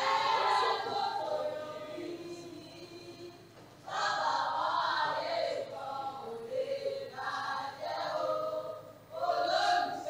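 Several voices singing together in a choir-style song, in held phrases with short breaks between them.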